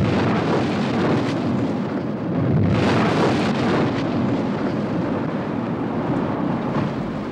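Gale-force wind and breaking seas rushing around a small open boat, heavy on the microphone. A louder surge of wind and spray comes about three seconds in.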